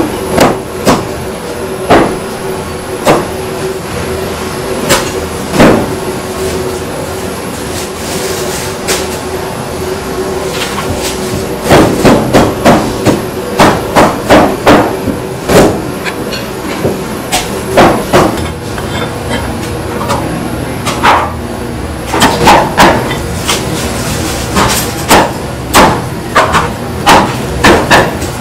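A cleaver chops roast duck on a thick round wooden chopping block: sharp thuds at irregular spacing, with quick runs of several chops midway and near the end. A steady hum runs underneath.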